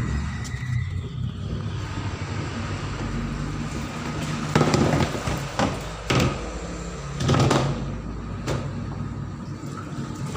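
Washing machine being closed back up: several short clunks and scrapes from the casing and panel being handled, over a steady low hum.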